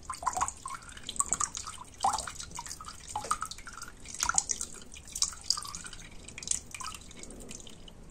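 Old coolant draining from the opened drain bolt at a Honda Magna 250's water pump into a container: a fast, irregular patter of drops splashing into the liquid, with short plinking notes.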